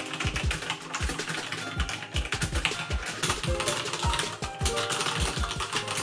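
Fast, continuous typing on mechanical keyboards, the keys clacking in quick irregular strokes: first the Logitech G413's Romer-G switches, then a keyboard with Cherry MX Brown switches. Background music plays underneath.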